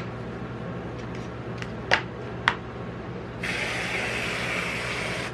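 Metal tongs clicking a few times against the paper cup and steel plate. Then, about three and a half seconds in, an aerosol can of whipped cream sprays a steady hiss for about two seconds. A steady low hum sits underneath.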